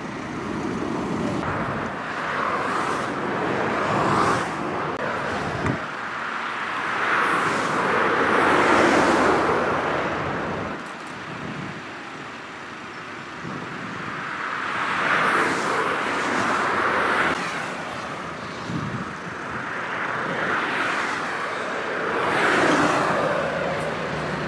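Motorway traffic passing: vehicles go by one after another, each swelling up and fading over a few seconds in a rush of tyre noise. The loudest pass comes about eight seconds in.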